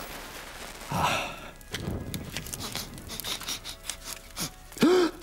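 A short breathy puff about a second in, as a match is blown out, then faint scattered crackling from a small fire. A man gives short wordless hums near the end.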